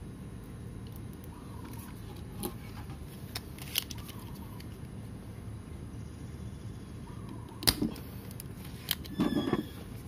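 Spring-loaded desoldering pump (solder sucker) firing at a solder joint on a mouse circuit board: one sharp snap a little over seven and a half seconds in, then a short clatter of clicks about a second and a half later. Small handling clicks come earlier, over a steady low background noise.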